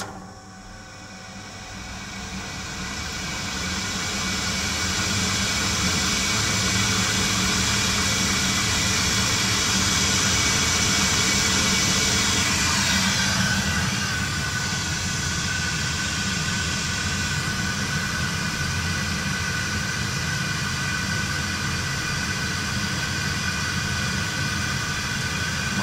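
EBMpapst RG148 boiler blower fan, manually set to maximum speed, running up over about five seconds to a loud, steady rush of air. About halfway through, the rush eases slightly and a steady whine comes in.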